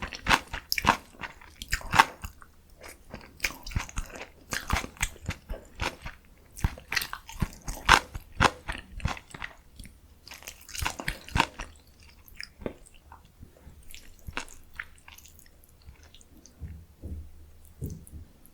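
Close-miked crunching and chewing of food in a person's mouth, a rapid run of crisp bites that thins out to occasional chews after about twelve seconds.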